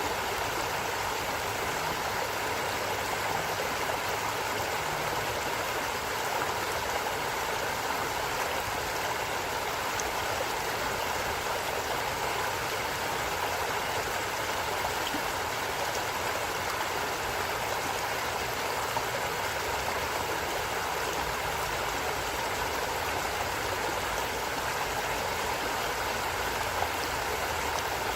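A flowing stream: water running and gurgling over rocks in a steady, even rush.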